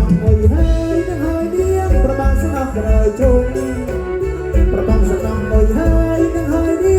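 Live folk band music with a steady, heavy drum beat and melodic instruments playing between sung verses.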